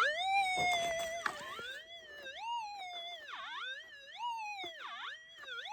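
Minelab SDC 2300 metal detector's target signal: a single pitched tone that rises and falls in pitch several times as the coil is swept back and forth over a buried target. It is a signal the detectorist judges worth digging.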